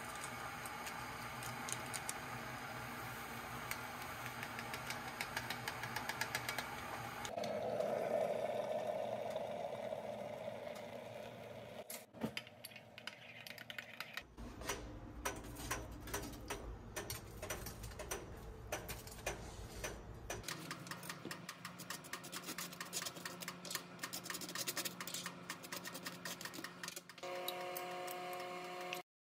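Electric kettle heating water to the boil, then hot water poured into a mug of instant coffee, a rushing sound that swells and fades. Later comes a long run of small, rapid scraping clicks as a spoon spreads topping on toast.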